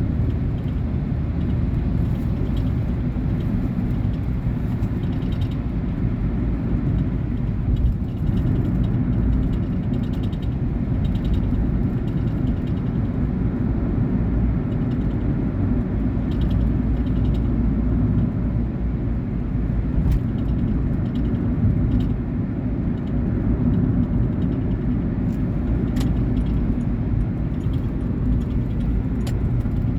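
Cabin noise of a 2019 Volkswagen Polo Vivo under way: a steady low rumble of engine and road, with a few faint clicks now and then in the second half.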